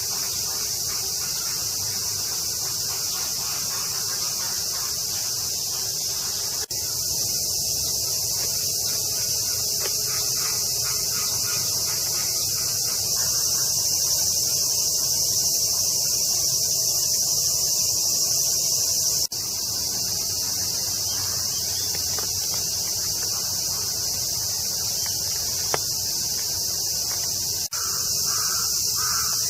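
A chorus of cicadas giving a dense, steady, high-pitched drone, with three brief dips.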